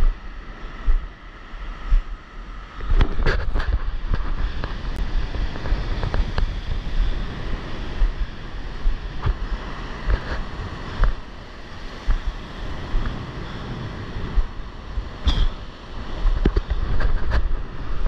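Breaking surf and whitewater washing up a sandy beach close by, with wind gusting on the microphone. The sound grows louder about three seconds in, and short sharp clicks come and go.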